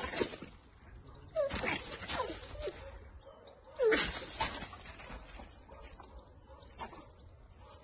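A dog's short whimpering yips in a few bursts, about 1.5, 2 and 4 seconds in, each falling in pitch, over gravel scuffing under paws.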